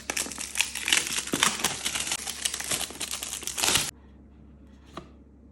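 Packaging crinkling and rustling as a mouse's box is unpacked, a dense run of crackles that stops abruptly a little before four seconds in. About a second later there is one faint tap.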